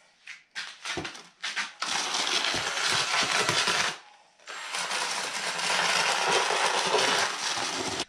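Cordless drill with a paddle mixer attachment churning sand-and-cement pointing mortar in a plastic tub: a few short starts, then a gritty scraping run of about two seconds, a brief pause, and a longer run of about three seconds.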